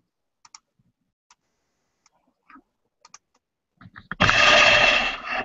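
A few faint clicks, then about four seconds in a loud, rough rubbing and scraping noise of a webcam and its microphone being handled and moved.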